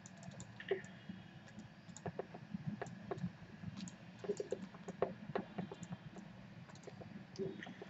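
Faint, irregular light clicks and taps of a pen stylus writing on a tablet.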